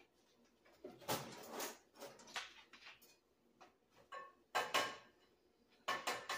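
Kitchen handling noises: several short bursts of clatter and rustling as things are moved about.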